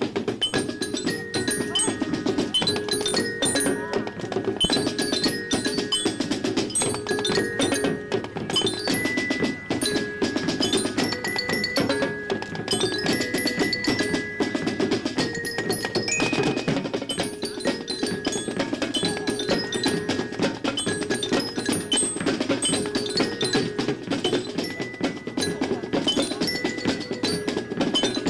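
Juvenile marching jazz band playing: a steady run of drum strokes with a glockenspiel melody ringing over it and a fuller band sound underneath.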